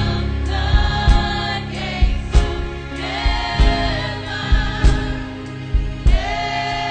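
Live gospel praise music: a choir singing a sustained chorus line over bass and drums keeping a steady beat.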